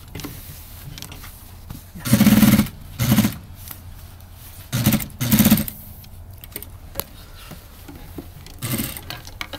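Industrial single-needle sewing machine stitching through ten layers of denim in several short bursts, the longest about two seconds in and about five seconds in.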